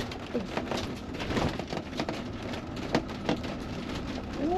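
Camper van driving slowly, heard from inside the cab: a steady low rumble with many scattered crackles and clicks from the tyres on rough ground.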